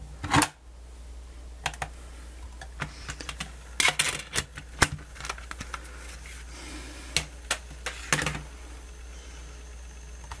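Irregular plastic clicks and taps from a Sony Discman portable CD player being handled as its lid is snapped shut and the case gripped, with louder clusters about four seconds in and near eight seconds.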